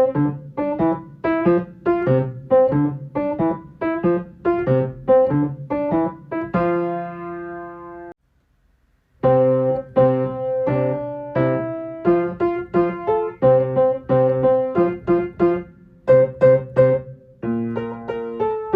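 Simple piano accompaniment, a bright melody over single bass notes in the left hand, played in an even beat of about two notes a second. About six and a half seconds in it ends a phrase on a held chord that fades, stops briefly just after eight seconds, then starts a new passage.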